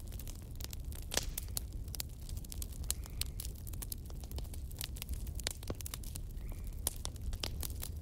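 Irregular crackling clicks over a steady low hum.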